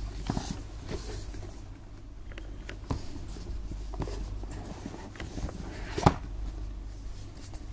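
Cardboard gift box handled in the hands: scattered light rustles and taps as it is turned over, with a sharp knock about six seconds in.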